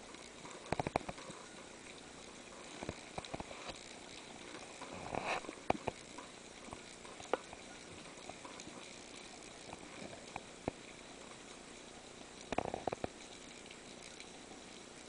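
Underwater ambient noise picked up by a handheld camera in its housing: a faint steady hiss with scattered sharp clicks and a few short bursts of crackling.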